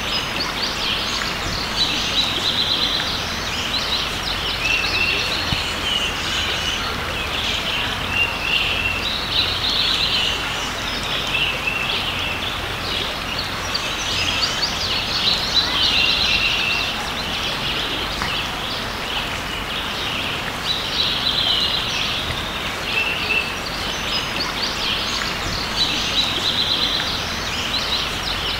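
Songbirds singing quick chirping phrases that come back every few seconds, over the steady rushing of a creek.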